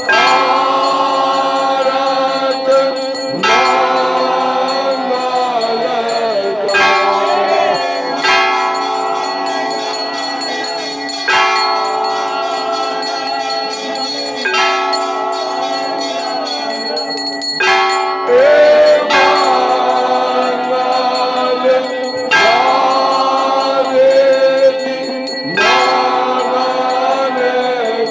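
Temple bells ringing during an aarti, struck again every few seconds, their tones ringing on and overlapping, with devotees' voices singing along.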